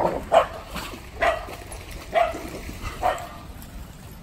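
A dog barking five short barks: two in quick succession, then about one a second, the second bark the loudest.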